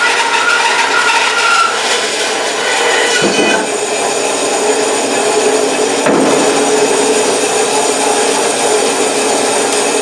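Bandsaw ripping a pear log with a used, rusty blade. The sawing tone stops about three and a half seconds in and the saw keeps running, with two wooden knocks as the log and slab are moved.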